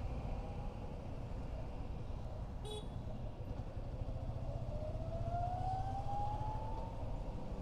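Motorcycle riding through city traffic: a steady low run of engine and road noise, with a brief horn toot a little under three seconds in and a slowly rising whine in the second half.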